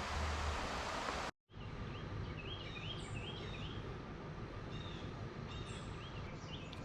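A steady rumble with a low hum, cut off suddenly just over a second in; then birds chirping in short, repeated calls over quiet outdoor background.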